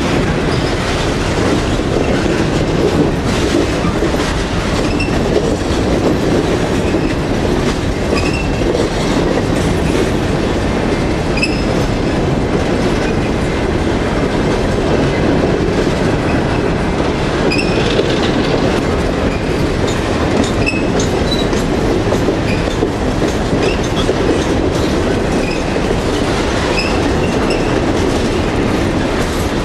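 Empty Norfolk Southern coal hopper cars rolling past close by: a steady loud rumble and rattle of the empty cars, with steel wheels clacking over rail joints and short wheel squeals now and then.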